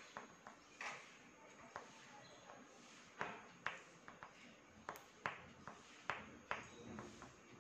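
Oil pastel stick scratching and tapping on paper in short, quick strokes, a dozen or so, irregularly spaced and faint: small grass blades being flicked in.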